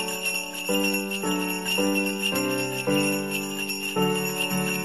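Christmas background music: sleigh bells shaking steadily over a simple melody whose notes change about twice a second.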